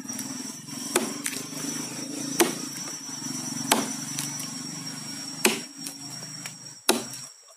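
Five chops of a blade biting into the dry wood of a dead agarwood log, about one every one and a half seconds. A steady high insect drone runs underneath.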